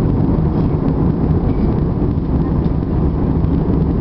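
Steady cabin noise of an Airbus A320-200 in flight above the clouds: engine and airflow noise, heavy in the low end and unchanging.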